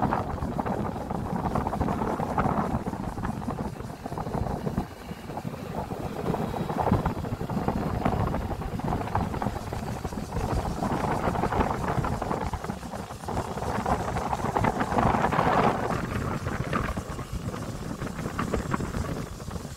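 Wind rushing and buffeting over the microphone of a moving motorbike, a rough noise that swells and dips, with the hum of the ride underneath.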